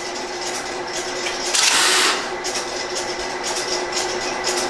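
Stromberg-Carlson XY telephone switch at work: light relay clicking over a steady hum, with a burst of rapid mechanical clatter lasting about half a second, about a second and a half in.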